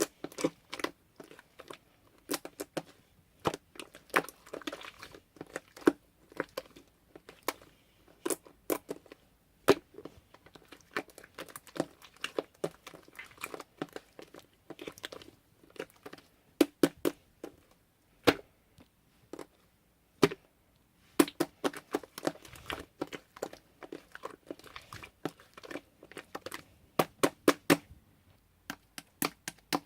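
Pink slime being squeezed and stretched by hand, giving off rapid, irregular sharp pops and crackles with short pauses between handfuls.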